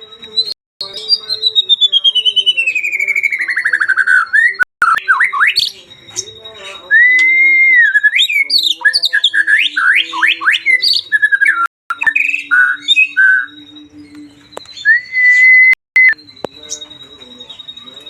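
White-rumped shama (murai batu) singing loudly, a varied run of mimicked phrases ('isian'). It opens with a long whistle that slides down in pitch, then comes a quick series of rising sweeps and short held whistles. A faint steady high tone runs underneath.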